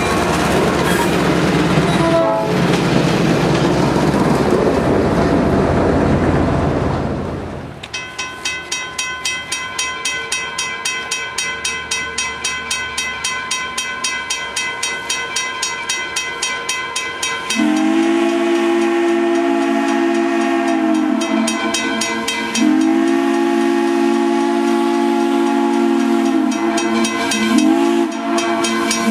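A diesel locomotive passes close by with a loud, even rumble of engine and wheels. After a cut, Wilmington & Western No. 58, a 0-6-0 steam locomotive, approaches working steam, its exhaust beating about four times a second. It then sounds its steam whistle in the grade-crossing pattern: long, long, short, long.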